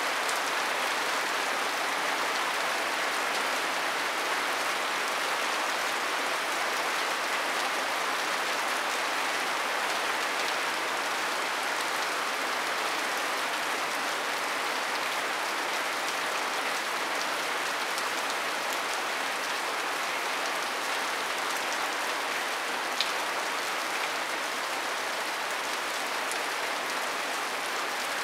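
Steady rain falling on a sago-palm leaf thatch roof: an even patter of drops, with a single sharper tick late on.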